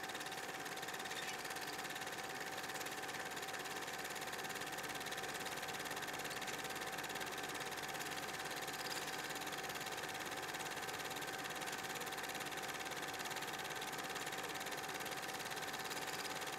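A steady hissing drone with a constant high hum held on one pitch, unchanging.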